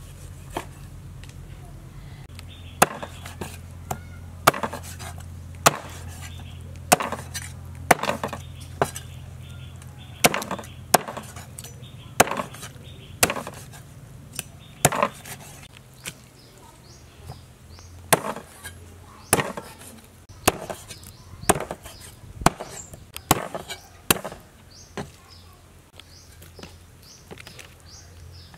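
Meat cleaver chopping raw chicken into pieces, through the bone, on a thick round wooden chopping block: sharp chops at an uneven pace of roughly one a second.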